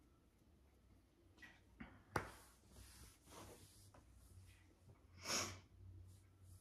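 Mostly a quiet room. A single sharp click comes about two seconds in, followed by a faint low hum. A little past five seconds comes a short sniff, a quick breath through the nose, which is the loudest sound.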